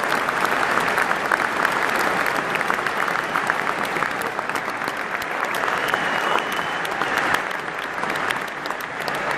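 Large stadium crowd applauding, a dense even clatter of many hands clapping, with a short whistle about six seconds in.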